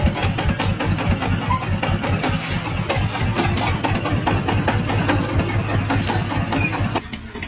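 A large engine running steadily with a dense, rapid clatter, cutting off suddenly near the end.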